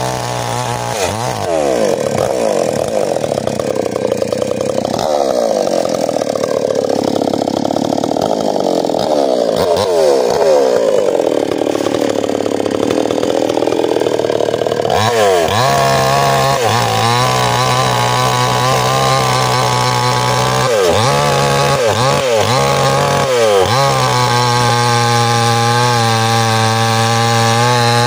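A small chainsaw runs at high revs cutting into the trunk of an old ironwood tree, its pitch sagging and recovering as the chain bites into the hard wood. From about halfway the engine note steadies, dropping briefly a few times.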